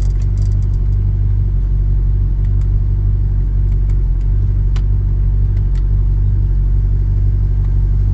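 Audi R8's 4.2-litre V8 engine idling steadily, a low, even hum, with a few faint clicks over it.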